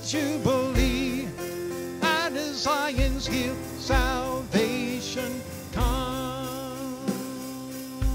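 Live gospel music: a man singing held notes with vibrato, accompanying himself on a Yamaha stage keyboard, with deep bass notes coming in every second or two.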